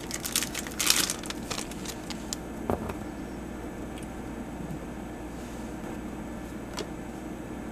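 Foil wrapper of a Magic: The Gathering booster pack crinkling and tearing open for the first two seconds or so, then a soft knock and a few light ticks as the cards are handled, over a steady background hum.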